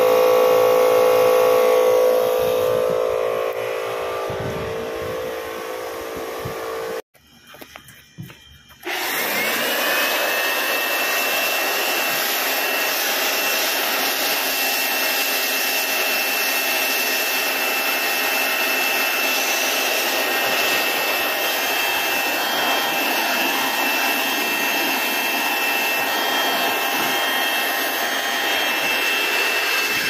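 Machinery running: a motor hum with steady tones at first, then a break of about two seconds. After that comes a steady rushing fan noise with a high whine that rises briefly and then holds steady, from a rooftop package air-conditioning unit running.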